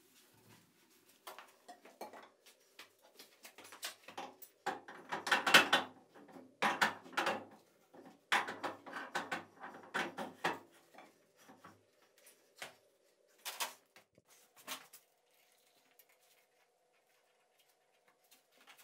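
Metal clanks, clicks and rattles from hand work on a milling machine's spindle housing, busiest in the middle and thinning out toward the end, over a faint steady hum.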